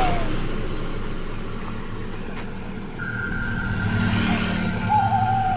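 A road vehicle's engine running steadily with a low hum. A steady high tone joins about three seconds in, and a short falling whistle-like tone comes near the end.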